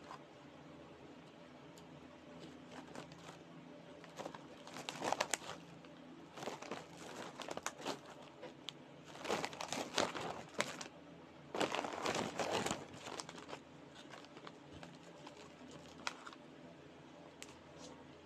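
Plastic Oishi Pillows snack bag crinkling as it is handled, in several bursts of rustling, the loudest in the middle stretch.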